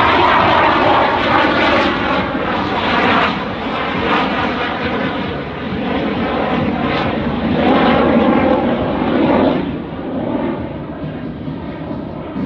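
CF-18 Hornet fighter's twin jet engines running through a slow inverted pass with the landing gear down. The jet noise swells and fades with a sweeping, whooshing quality, loudest in the first three seconds and again around eight to nine seconds, then dropping off.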